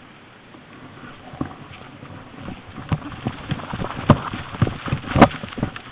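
A series of irregular knocks and thuds, a few tenths of a second apart, growing louder, with the loudest one about five seconds in.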